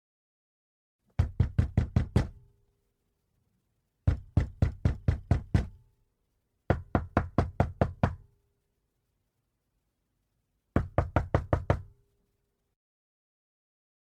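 Knuckles knocking on a door in four quick bursts, each of about six to eight fast raps lasting a second or so, with pauses between them.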